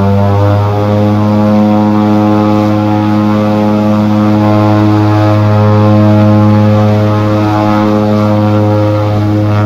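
Twin-engine turboprop airliner's engines and propellers running at high power with the aircraft held at the top of the runway before its takeoff roll. The sound is a loud, steady propeller drone: a strong low hum with a stack of higher tones above it, its pitch rising slightly at the start and then holding.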